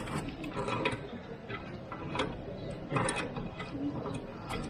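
Hand ratchet wrench clicking as it turns a bolt on a car's rear suspension, a bolt that now turns freely; a string of separate irregular clicks.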